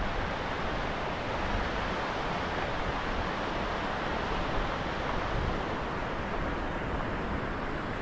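Steady rushing of a waterfall on the Skógá river, with wind buffeting the microphone.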